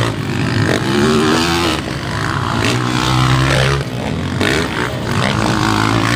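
Motocross dirt bike engines revving, several at once, their pitch rising and falling as the throttles open and close.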